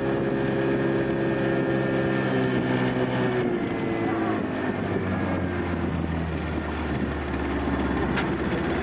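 Boat motor running, with a steady, even drone; about three and a half seconds in its note drops to a lower hum as the boat slows.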